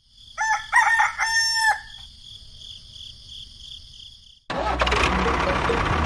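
A rooster crows once, about a second and a half long, over a steady high-pitched chirring. Near the end a loud, steady motor-like noise cuts in abruptly.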